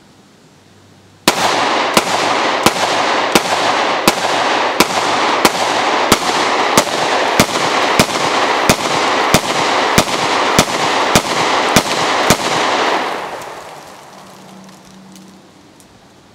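Rock Island Armory 1911 pistol chambered in 22 TCM fired in a steady string of about eighteen shots, roughly one and a half a second. Echo rings on between the shots and fades away after the last one.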